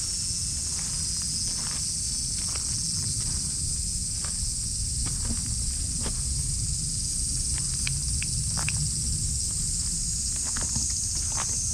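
Cicadas calling in a steady, high-pitched chorus, with scattered small clicks and rustles and a low steady rumble underneath.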